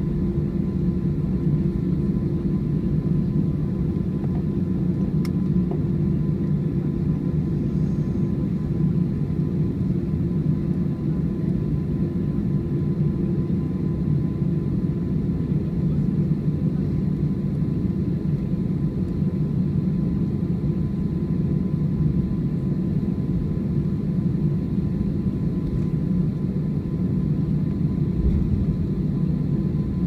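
Steady cabin noise inside an Airbus A321 taxiing: a low, even rumble from its CFM56 engines at idle, with a faint steady hum over it.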